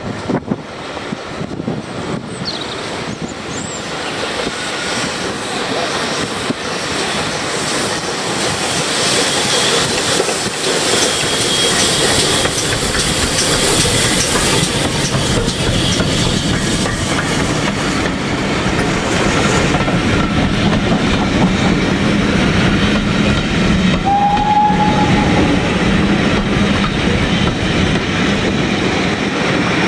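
GWR Castle-class four-cylinder 4-6-0 steam locomotive 4079 Pendennis Castle working a train of carriages past, the running noise of the engine and the carriage wheels clicking over rail joints growing louder as the train draws level. A short high tone sounds near the end.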